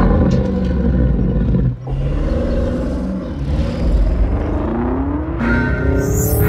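Porsche Cayenne Turbo GT's twin-turbo V8 running under throttle, with a brief drop about two seconds in and its pitch climbing near the end as it revs up.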